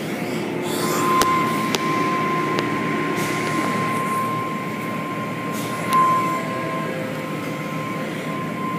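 Automatic tunnel car wash machinery running: a steady mechanical rumble and spray noise with a steady whine that sets in about a second in, a few light clicks early and a brief louder knock around the middle.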